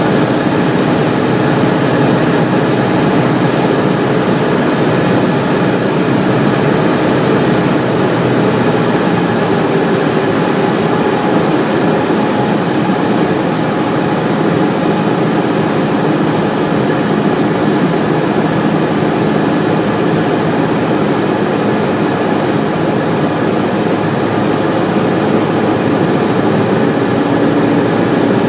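Cessna light aircraft's engine and propeller running steadily, heard from inside the cockpit as a loud, unbroken drone.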